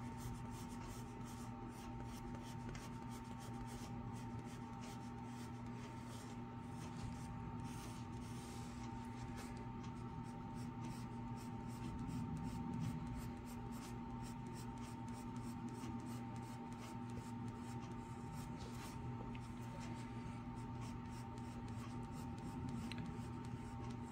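Wooden pencil scratching on paper in short repeated strokes while drawing small circles for wheels, over a steady low hum.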